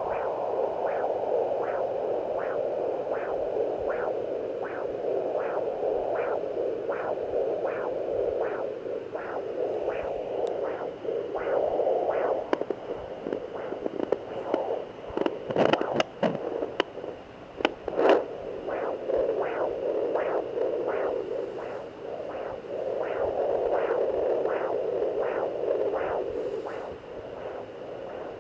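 Handheld fetal Doppler speaker giving a steady whooshing hiss with a rhythmic heartbeat pulse about twice a second. About halfway through, loud scratching and scraping clicks break in as the probe is moved over the belly, and then the pulsing returns.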